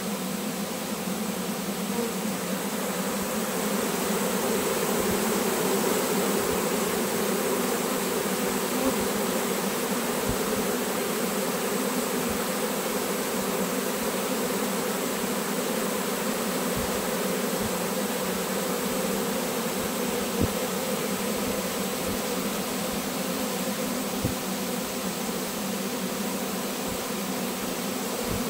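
A swarm of honeybees buzzing in a steady, dense hum as they fly around and settle onto an open hive box, with a few faint knocks underneath.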